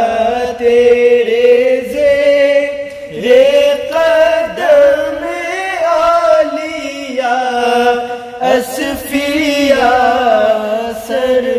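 Two male voices singing an Urdu devotional kalaam (manqabat), drawing out long melismatic held notes between the words of the verse.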